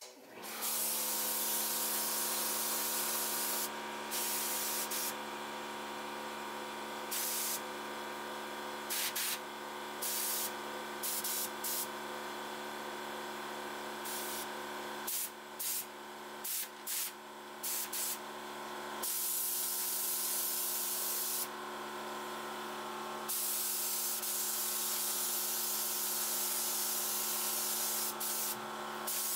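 Air spray gun (gravity-feed) spraying paint in repeated trigger passes: a loud hiss that starts and stops again and again, with several short bursts in quick succession in the middle. A steady hum runs underneath.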